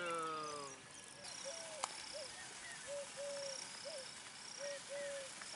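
Rural outdoor ambience: short chirping calls repeating at two pitches, one low and one high, with a single sharp click about two seconds in.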